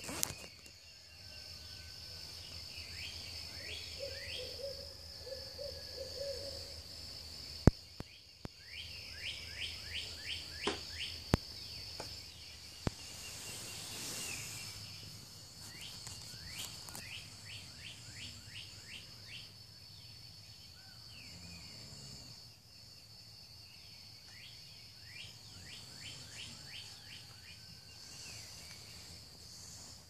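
Summer night chorus of insects: a steady high-pitched drone, with bursts of quick falling chirps every several seconds and a short low warbling call about four seconds in. A few sharp clicks sound near the middle.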